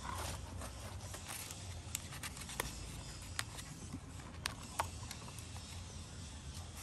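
Plastic cable tie being threaded through the holes of a plastic seedling-tray mount and pulled snug around a staghorn fern: faint rustling and scraping with a few sharp plastic clicks, most between about two and five seconds in, over a faint low hum.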